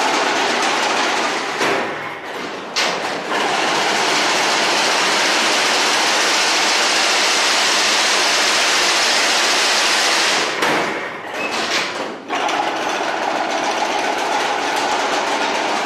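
Automatic chain link fence machine running, weaving PVC-coated wire into mesh: a loud, steady mechanical clatter that drops away briefly twice, about two seconds in and about eleven seconds in.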